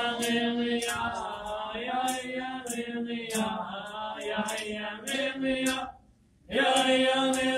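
Voices singing an Alaska Native dance song as a chant in long held notes, with a sharp beat about twice a second. The singing breaks off briefly about six seconds in, then starts again.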